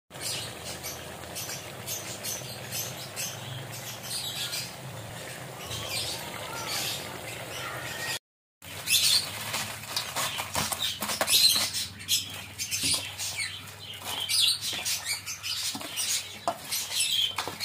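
Crablets deep-frying with garlic in hot oil: a steady crackling sizzle full of fine pops. After a short break about eight seconds in, the crackling and clicking is louder and sharper, and near the end a hand is working battered crabs around a metal bowl.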